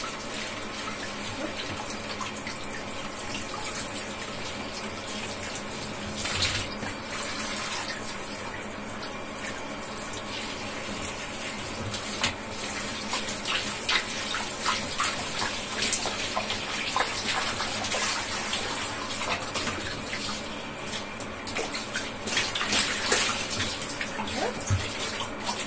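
Handheld shower head spraying water over a cat sitting in a basin of bathwater, a steady hiss. From about halfway through, hands rubbing the wet fur add frequent small splashes and sloshes.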